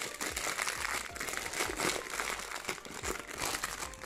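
Clear plastic bag crinkling in the hands as a white silicone resin mold is pulled out of it: a continuous run of small crackles and rustles.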